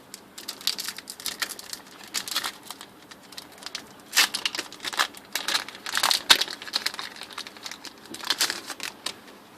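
Yu-Gi-Oh booster pack's foil wrapper crinkling as it is torn open and the cards pulled out, an irregular run of crackles.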